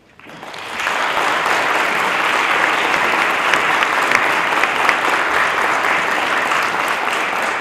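Audience applauding: steady clapping that builds up within the first second and then holds.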